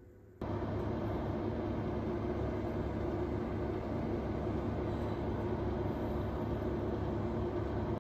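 Oven running while broccoli roasts: a steady low hum and rush of its fan, starting abruptly about half a second in.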